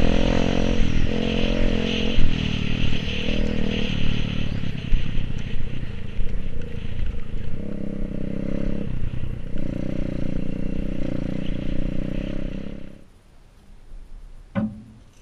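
Dirt bike engine running under way, its pitch rising and dropping with throttle and gear changes, with rattle from the rough track. The engine sound cuts off abruptly about 13 seconds in, leaving quiet broken by one short sharp click near the end.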